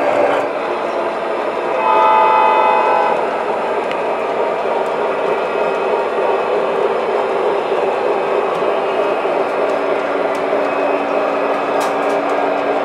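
Model trains running on track: a steady rolling rumble of wheels and motors, with a steady hum under it. A model locomotive's horn sounds once, for about a second, about two seconds in.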